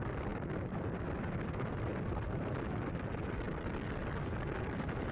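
Steady low rumble of trucks driving on a highway, heard from a moving truck: engine, tyre and wind noise with no single event standing out.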